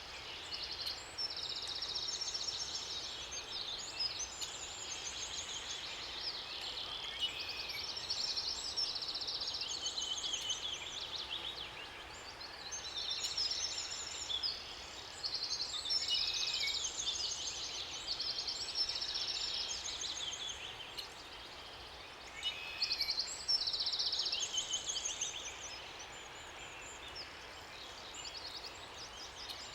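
Several songbirds singing in overlapping high, rapid trilled phrases, over a faint steady rush of water.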